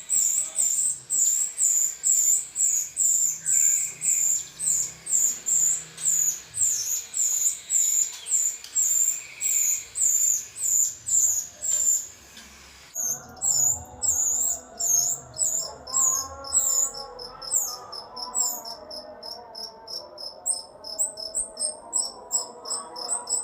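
Rio-rio bird song: a steady string of sharp, high chirps, about two a second. Just past halfway it changes suddenly to a faster run of high notes, with lower warbling notes beneath.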